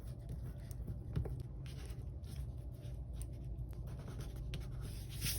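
Quiet handling of paper and planner stickers on a desk: light scratchy rustles and small taps, over a low steady room hum.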